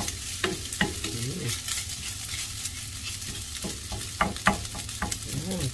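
Chorizo fried rice sizzling in a frying pan as a wooden spatula stirs it, a steady frying hiss broken by sharp scrapes and knocks of the spatula against the pan, the loudest a little past four seconds in.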